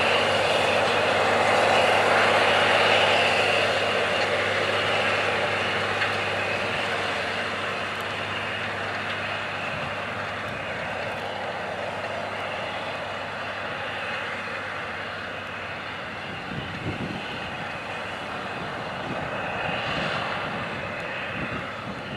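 A 620 hp John Deere 9620RX four-track tractor's engine runs hard under load, pulling a Great Plains turbo chisel plow whose shanks run 16 to 18 inches deep. It is loudest at first and fades slowly as the tractor works away, swelling a little again near the end.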